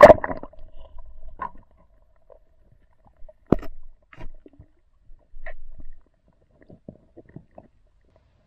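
Muffled underwater sound of a spearfisher swimming over river rocks: a loud splash as the camera goes under, then scattered clicks and knocks, the loudest about three and a half seconds in.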